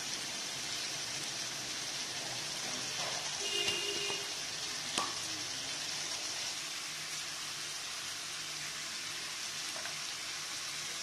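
Chicken masala for biryani frying in a pot with a steady sizzling hiss. There is a faint knock about five seconds in.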